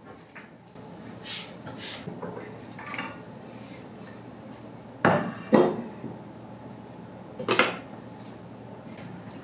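Kitchenware being set down on a wooden countertop: a plate, a wooden cutting board and a knife. There are a few light clinks and rattles, then sharp knocks about five seconds in, again half a second later, and about seven and a half seconds in.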